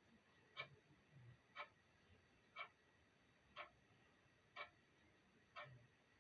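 Clock ticking faintly and evenly, one tick a second.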